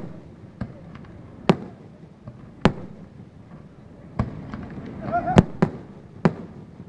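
Aerial firework shells bursting overhead: about eight sharp bangs at uneven intervals, the loudest about five and a half seconds in.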